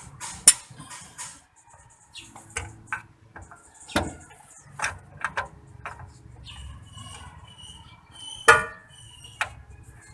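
Scattered clicks and knocks of hand tools against metal car parts, with a few sharp clanks that ring out, the loudest about eight and a half seconds in.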